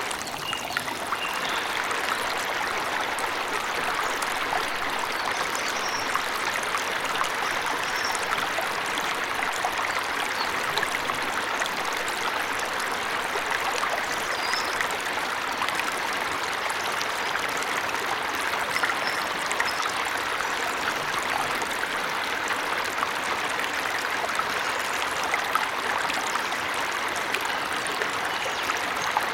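Steady rush of falling water from a forest waterfall, with a few faint, high bird chirps now and then.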